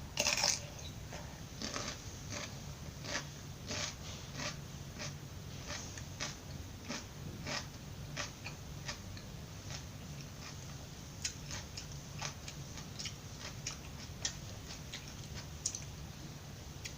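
Close-up crunching and chewing of raw vegetables: a loud crisp bite at the start, then a steady run of sharp chewing crunches, several a second.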